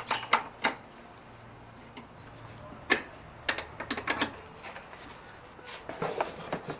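Irregular sharp plastic clicks and knocks, some singly and some in quick clusters: the air box parts and pop-up clips being fitted back into place by hand.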